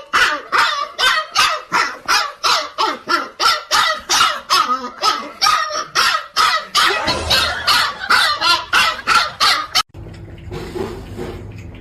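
A dog barking over and over, about three barks a second, for nearly ten seconds. The barking cuts off suddenly near the end and a quieter low steady hum follows.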